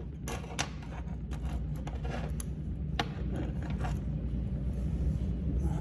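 Light, scattered clicks and scrapes from handling a MIG welding torch and metal workpieces, over a steady low hum.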